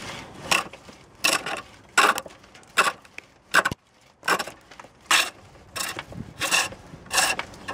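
Roughing gouge cutting a partially seasoned ash blank on a treadle-driven pole lathe: a rasping cut of peeling shavings roughly every 0.7 seconds, with a pause between each, as the lathe spins the wood back and forth and the gouge bites only on each downstroke.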